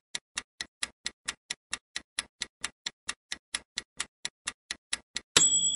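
Quiz countdown-timer sound effect: quick, even clock ticks, about five a second. Near the end the ticking stops and a loud, bright chime rings out, marking time up.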